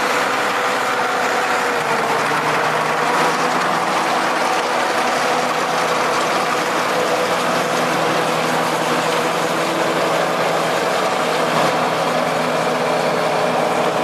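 Heavy log truck's diesel engine running steadily under load.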